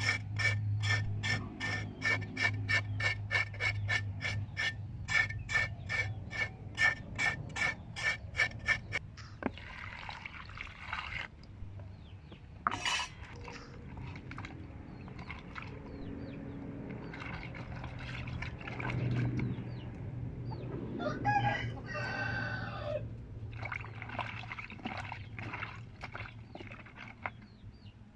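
Cleaver chopping a gourd on a wooden chopping block in a fast, even run of about three to four chops a second for the first nine seconds. Then hands swish and splash vegetable pieces in a basin of water, and a chicken calls once about two-thirds of the way through.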